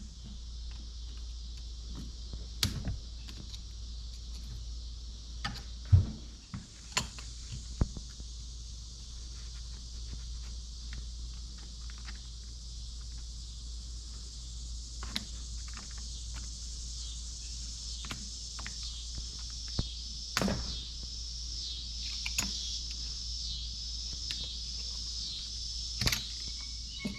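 Steady high insect chirring, breaking into quick repeated chirps in the second half. Scattered clicks and knocks of metal parts and tools being handled run over it, the loudest about six seconds in.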